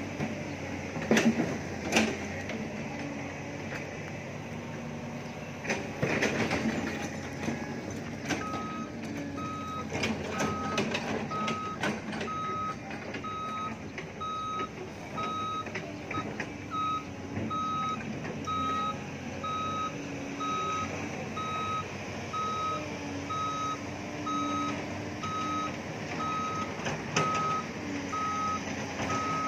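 Heavy machinery engines running at a soil-loading site, with a few loud knocks early on, then a backup alarm starting about eight seconds in and beeping steadily, a bit faster than once a second, as a vehicle reverses or travels.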